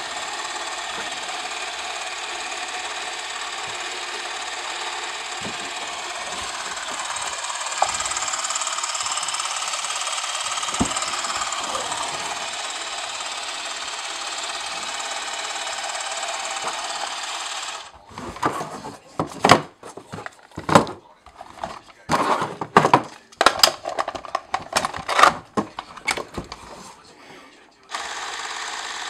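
Canon Auto Zoom 512XL Electronic Super 8 movie camera running: a steady mechanical whir from its motor drive that stops abruptly about eighteen seconds in. Irregular clicks and knocks follow as the camera and its controls are handled, and the camera starts running again near the end.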